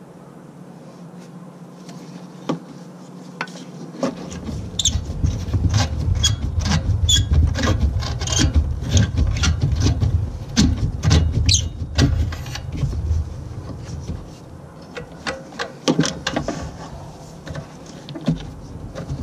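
Quick, irregular clicks and clinks of a socket wrench and metal parts as bolts on the EGR valve of a Ford 4.6 V8 are worked loose, over low rubbing and knocking close to the microphone. The clicking starts about two seconds in, is densest in the middle and thins out near the end.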